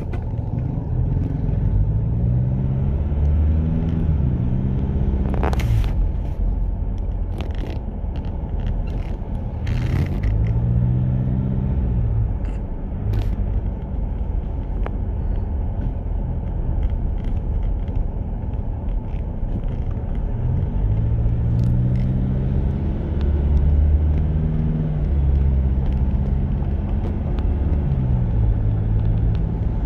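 Car engine and road noise heard from inside the cabin: a steady low rumble in which the engine's pitch rises and falls three times as the car speeds up and slows in traffic. A few brief sharp clicks come near the start and around the middle.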